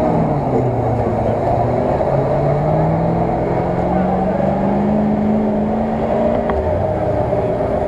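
GAZ-66 army truck's engine pulling through a deep mud-and-water pit, its pitch climbing slowly and steadily under load, then dropping back near the end. Crowd voices in the background.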